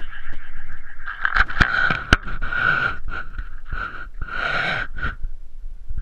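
A camera whirling on a string, with air rushing over its microphone in a hissing whoosh that swells and fades with each turn. There are a few sharp knocks about one and a half to two seconds in.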